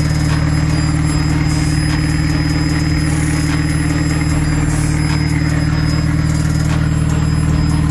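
Turbocharged Toyota 2RZ inline-four engine in an AE86 Corolla idling steadily.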